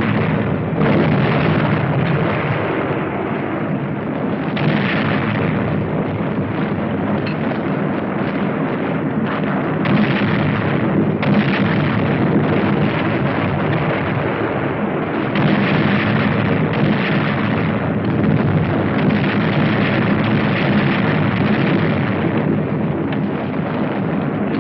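Battle sound on a 1945 film soundtrack: a dense, continuous din of explosions and gunfire, with several louder surges of blasts along the way.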